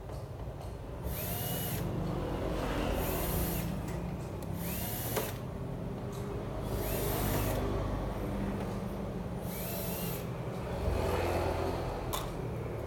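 A small power screwdriver or drill runs in short bursts, about six times, roughly every two seconds, as screws are driven out one after another while the TV is taken apart.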